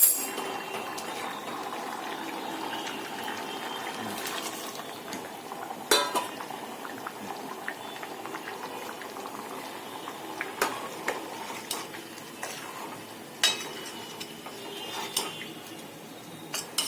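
Hot water poured into a pan of fried spices and chickpeas, then a spoon stirring and knocking against the pot several times.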